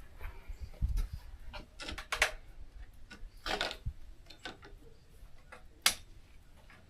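Faint, irregular small clicks and ticks with a few short hissing sounds, and one sharper click about six seconds in.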